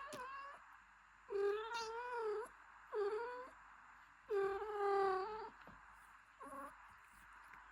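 A cat meowing repeatedly: about five calls, the second and fourth long and drawn out, the last one short.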